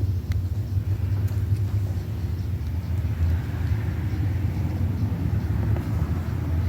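A steady low rumble runs throughout, with a few faint small clicks.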